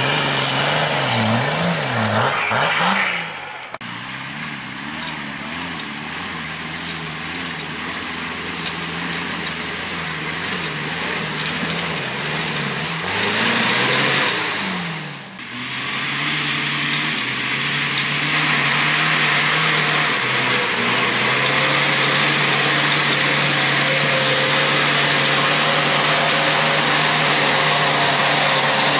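Off-road 4x4 engines labouring up loose rock. The engine note rises and falls with the throttle in the first few seconds and again about halfway through, and otherwise holds a steadier pitch under load.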